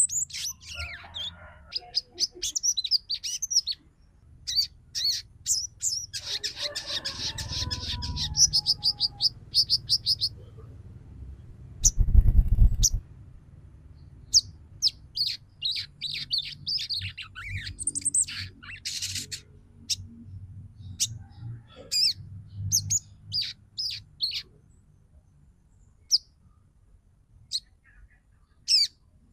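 Female sogon bird calling: a series of sharp, high chirps and quick down-sweeping notes, with a dense chattering trill a few seconds in. A loud low rumble interrupts briefly about twelve seconds in.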